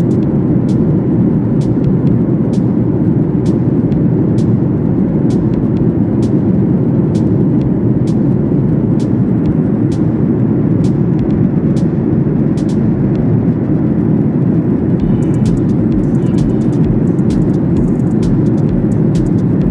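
Steady low rumble of jet airliner cabin noise in cruise, the engines and airflow heard from inside the cabin, with faint scattered clicks that come more often near the end.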